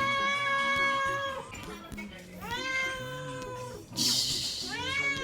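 A cat meowing for food: three long drawn-out meows, one after another.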